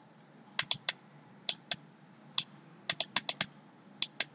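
About a dozen sharp computer-keyboard keystrokes at uneven spacing, some in quick runs of two to five, as keys are pressed to scroll through a document.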